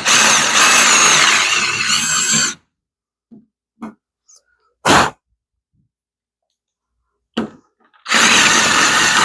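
Power drill running in bursts as a hole is drilled out into an oblong: a run of about two and a half seconds, a short burst near the middle, and another run starting near the end, its pitch wavering under load.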